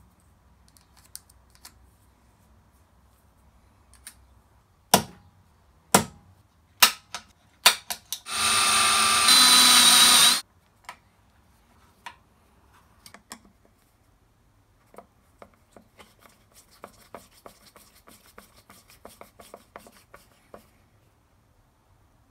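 Workshop assembly sounds: a few sharp knocks of tools and parts being handled, then a power drill running for about two seconds as a mounting hole is drilled, followed by a run of many small clicks as screws are driven in by hand with a hex key and screwdriver.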